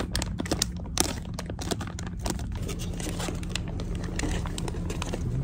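Crinkling and clicking of packaging and utensils being handled, dense for the first few seconds and then thinning out, over a steady low hum.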